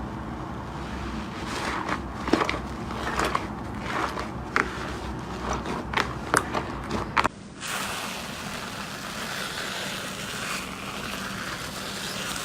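Crunching and crackling from crunchy ASMR material, probably slime or soap, being squeezed or crushed by hand: irregular sharp clicks over a low hum. About seven seconds in it cuts abruptly to a steady, even hissing rustle.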